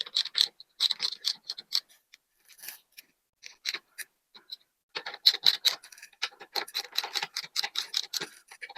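Socket ratchet clicking in quick runs of short strokes as the handlebar riser's bolts are snugged down, with a gap of a few seconds between the runs.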